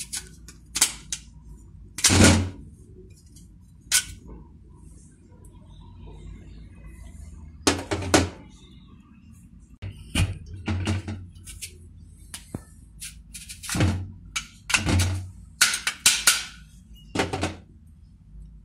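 Handheld plastic 5-in-1 vegetable slicer pressed down through a vegetable onto a ceramic plate, giving a dozen or so irregular knocks and clacks of plastic on the plate.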